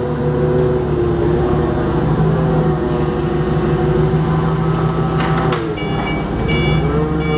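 Caterpillar forklift engine running steadily as it sets down a load of aluminum coils, with a few knocks about five seconds in. The engine dips and picks up again, and short repeated high beeps like a reversing alarm start near the end.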